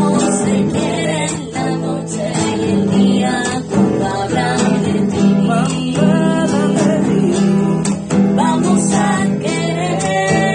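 Two acoustic guitars strummed together, one a classical guitar, while a woman and a man sing along.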